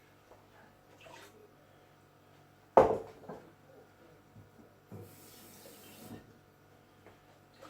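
Water being swished around in an emptied sauce jar and tipped out, with kitchen handling noises, one loud sharp knock about three seconds in, and a short rush of water about five seconds in.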